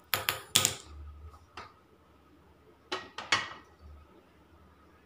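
Sharp metallic clicks and knocks near the start, then another short cluster of knocks about three seconds in as an aluminium pressure cooker is set down on a gas burner's steel pan support.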